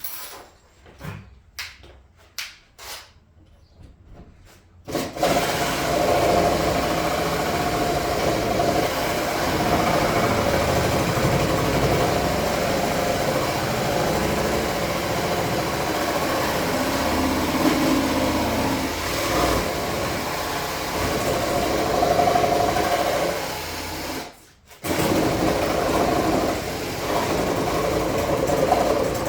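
A few sharp taps, then a cordless reciprocating saw cutting through a headless bolt, running steadily from about five seconds in, stopping briefly near the end and starting again.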